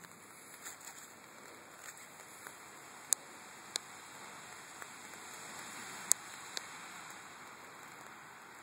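Light rain falling: a steady soft hiss, with a few sharp ticks standing out, the loudest about three seconds in and again about six seconds in.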